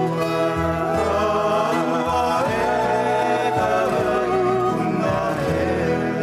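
A song with singing over instrumental accompaniment.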